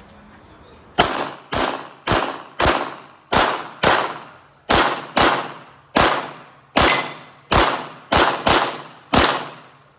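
Handgun fired rapidly on a competition stage: fourteen sharp shots from about a second in to near the end, some in quick pairs about half a second apart with short pauses between groups, each shot ringing out briefly.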